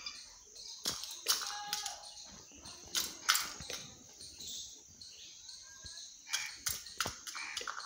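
Peacock's beak tapping and pecking at a small steel bowl: sharp clicks at irregular intervals, some in quick pairs. Short bird chirps can be heard in the background.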